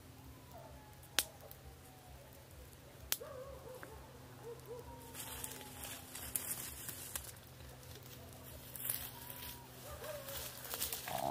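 Rustling and crackling in dry undergrowth. It begins about halfway through and grows louder near the end, and the people take it for an animal passing close behind them. Earlier there are two sharp clicks and faint gliding calls over a low steady hum.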